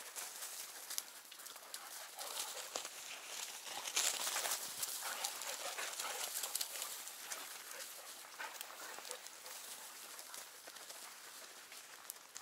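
Several hunting dogs moving about in long grass: rustling and scuffling with small dog sounds, busiest from about four to seven seconds in.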